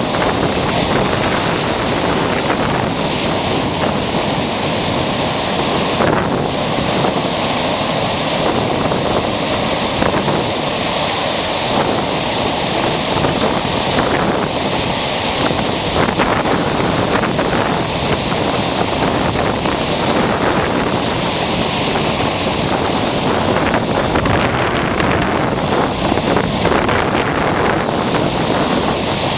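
Ocean surf breaking on the shore: a continuous, loud wash of waves with no pause.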